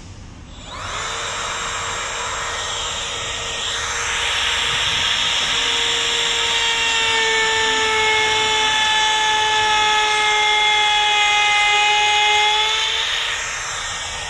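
Makita XTR01Z 18V brushless cordless compact router spinning up about half a second in, then running with a steady whine. From about four seconds the bit is cutting into a wooden board and the router runs louder under the load. Near the end it eases back as the bit leaves the wood, with the motor still running.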